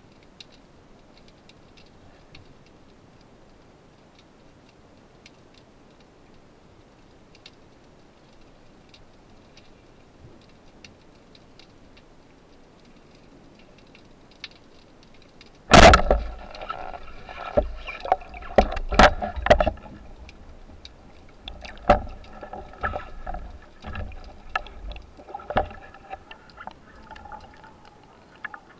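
Underwater sound from a camera mounted on a speargun: faint scattered clicking for about the first half, then a sudden loud knock about halfway through, followed by a string of knocks, rattles and rushing water as the diver moves toward the surface.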